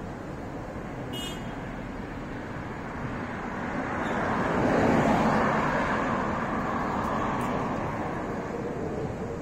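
Road traffic noise, with a vehicle passing close by: it swells to its loudest about five seconds in, then slowly fades.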